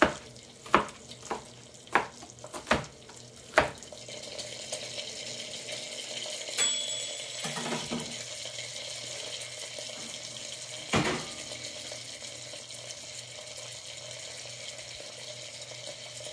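A knife chopping onion on a cutting board: about six chops in the first four seconds. After that, a steady sizzle from thick-cut bacon frying on high heat in a lidded cast-iron pan, with a short clink about halfway through and one more knock later.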